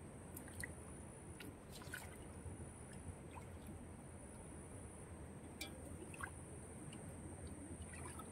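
Faint sloshing and dripping of shallow muddy water, stirred by hands and feet, with a few small splashes scattered through.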